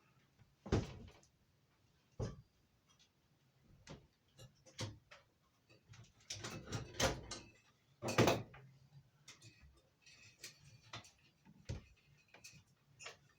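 Irregular knocks, clicks and rustles of objects being handled and moved about, with a few sharper knocks about 1, 7 and 8 seconds in.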